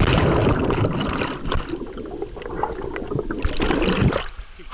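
Pool water churning and bubbling around a submerged camera microphone, heard as a muffled underwater wash. It is loudest at first and dies away after about four seconds.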